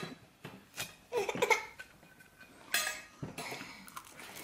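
A baby fussing with short whimpering cries, mixed with clinks of dishes and cutlery.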